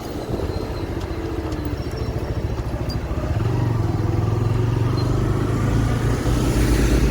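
TVS Raider 125's single-cylinder engine running while riding, with wind and road noise. The engine grows louder about three seconds in as it pulls harder.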